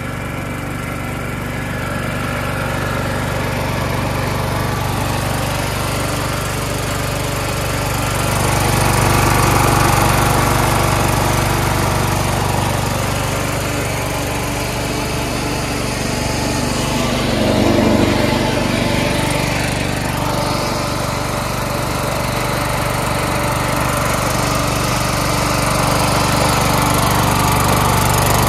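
Craftsman LT1000 hydrostatic lawn tractor's small engine running steadily while the tractor is driven along, swelling louder about a third of the way in and again a little past the middle.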